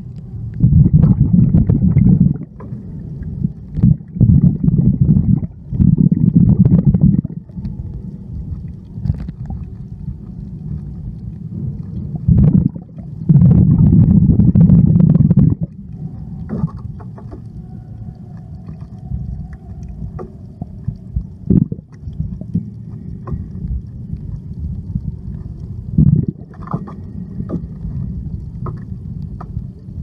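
Muffled underwater ambience heard through a submerged camera: surges of low rumbling water movement lasting a second or two, loudest in the first half, with scattered sharp clicks over a quieter steady rumble.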